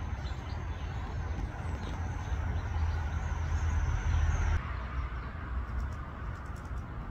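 Steady low outdoor background rumble. The background changes abruptly a little past halfway, as a faint high tone stops.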